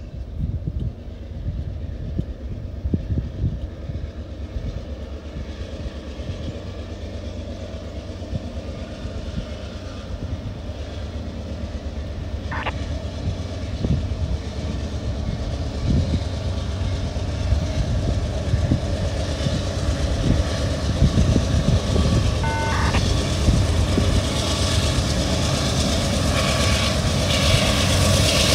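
Norfolk Southern diesel-electric locomotives pulling a freight train out of a railroad tunnel. Their low engine rumble grows steadily louder as they approach.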